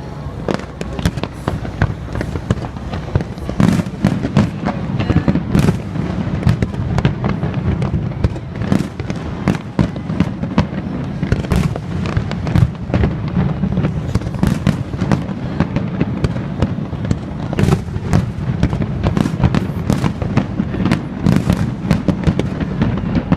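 Fireworks display: a rapid, unbroken barrage of sharp bangs and crackles over a continuous low rumble, picked up on a phone's microphone.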